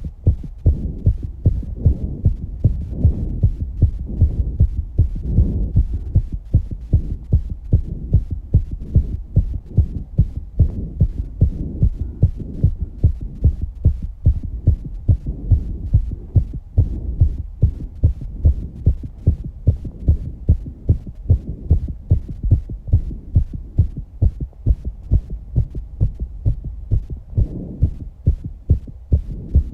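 A young woman's heartbeat after exercise: fast, regular low thumps. Slower swells of heavy breathing rise and fall beneath them.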